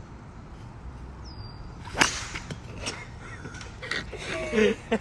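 A golf driver striking a ball off the tee: one sharp crack about two seconds in.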